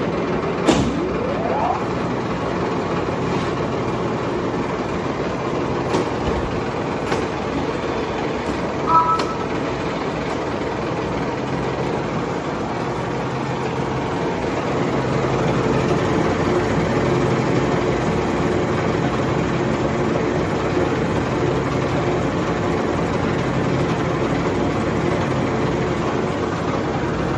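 A 42-inch Blanchard rotary surface grinder's 40-horsepower motor spinning up with a rising whine in the first two seconds, then running steadily. A few sharp clicks and a brief beep about nine seconds in.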